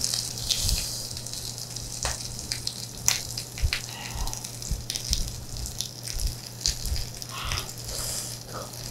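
Pork belly sizzling on a hot grill pan, with plastic gloves crinkling and scattered clicks of handling and eating over a steady low hum. Near the end, hissing breaths over a hot mouthful.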